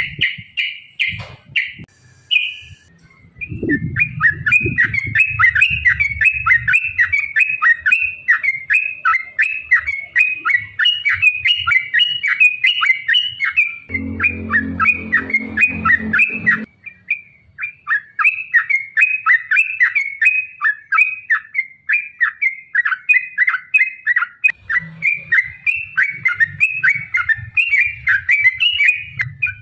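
Yellow-vented bulbul (trucukan) singing a long, rapid run of short chattering notes, the excited fighting song used as a lure to make other bulbuls answer. A low rumble sits underneath at times.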